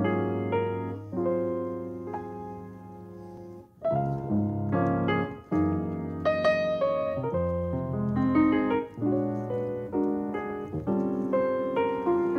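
Background music: a piano playing a melodic passage of chords and single notes, from a jazz quartet's track.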